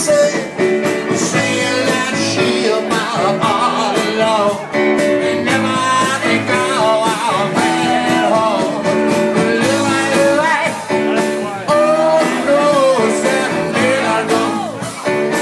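Live rock band playing: guitar, keyboard and drums with a man singing, heard from within the audience.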